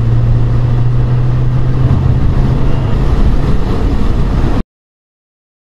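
Audi A4 1.8T's turbocharged four-cylinder and aftermarket B&B exhaust heard from the cabin, running under boost with a steady drone. About three seconds in the drone drops away as the throttle closes and the engine goes back to vacuum. The sound cuts off abruptly near the end.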